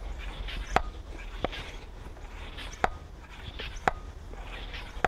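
Floor pump worked in repeated strokes, each a rush of air with a sharp click about once a second, inflating the Schwalbe Procore inner chamber of a mountain-bike tyre to about 3 bar.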